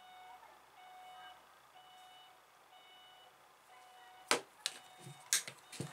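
A steel hacksaw blade clicking and knocking against the jigsaw's metal blade guide and clamp as it is fitted, a few sharp clicks from about four seconds in. Behind it, a faint electronic beep repeats about once a second.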